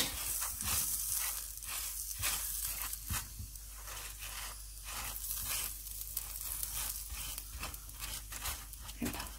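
Butter sizzling as it melts on a hot aloo paratha in a nonstick pan, with a wooden spatula spreading it in many short scraping strokes.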